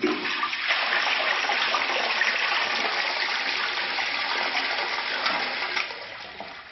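Push-button toilet flush: a sudden rush of water starts at once and runs steadily for about six seconds, then dies down near the end to a quieter, steady hiss.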